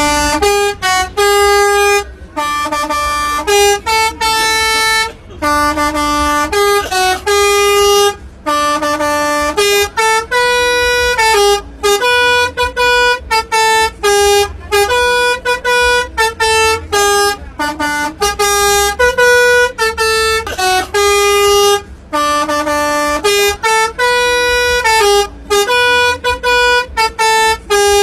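Bus telolet horn, a multi-tone air horn, playing a quick melody of stepped notes in repeating phrases with short breaks. A low vehicle rumble runs underneath.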